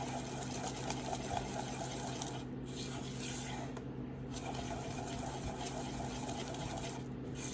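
Runny lemon-sugar and olive-oil cookie batter being stirred by hand in a bowl, a fast rhythmic scraping and clicking with brief pauses a few times. A steady low electrical hum sits under it.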